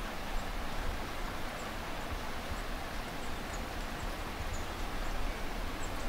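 Steady outdoor hiss with wind buffeting the microphone as an uneven low rumble, and a few faint, brief high chirps.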